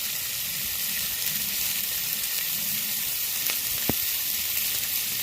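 Pork belly frying in a hot pan: a steady sizzle of spitting fat, with two sharp pops from the fat about two-thirds of the way through.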